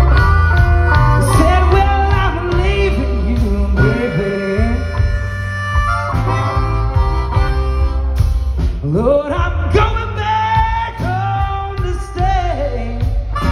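Blues harmonica (harp) solo played cupped against a microphone, with bent notes and quick rising slides, over a live electric blues band.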